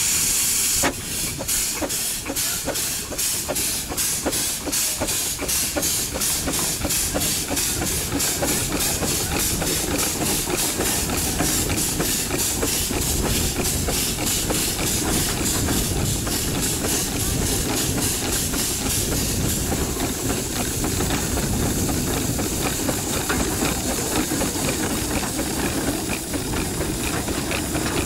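Steam traction engine under way: its exhaust chuffs in even, rapid beats over a constant steam hiss. In the last third the beats grow fainter and the hiss takes over.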